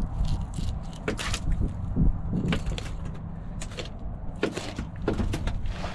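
Short bait knife cutting through a mutton snapper's rib bones while filleting: irregular sharp crunches and clicks, over a low steady rumble.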